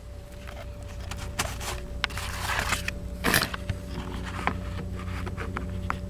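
Hands handling plastic cable connectors: scattered sharp clicks and rustling, with a brief loud scrape about three seconds in, over a steady low hum.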